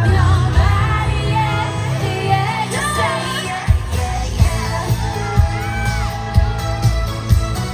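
K-pop played live through a stadium sound system: female vocals singing over a backing track with a heavy bass line. A steady kick-drum beat comes in about halfway through, roughly two beats a second.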